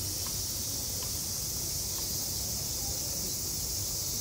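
Cicadas droning in a steady, unbroken high-pitched summer chorus, over a low outdoor rumble.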